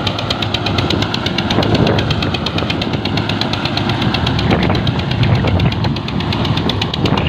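Swaraj 855 tractor's three-cylinder diesel engine running under load as it tows a borewell drilling rig, with a rapid, even diesel clatter over a steady low rumble.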